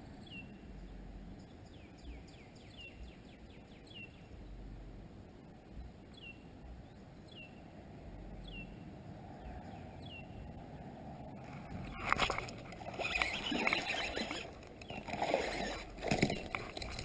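A bird repeats a short chirp that falls in pitch, about twice a second, over quiet outdoor background noise. About twelve seconds in, louder irregular knocks and rustling from movement in the small fishing boat take over.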